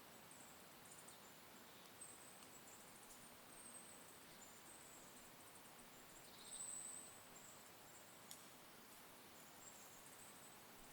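Faint forest dawn ambience: thin, very high-pitched chirps repeating at irregular intervals, one a little louder about six and a half seconds in, over a soft hiss.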